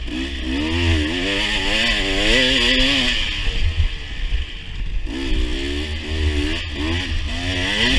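KTM 300 two-stroke single-cylinder dirt bike engine being ridden, the revs rising and falling in quick throttle blips. The revs drop away for about two seconds just before the middle, then pick up again with more quick blips.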